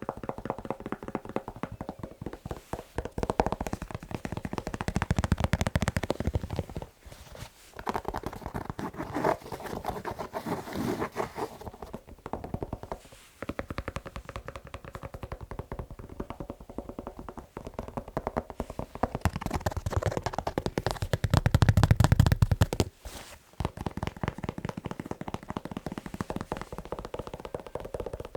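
Fast tapping and scratching on a shoe: a dense run of quick taps and scrapes, stopping briefly a few times.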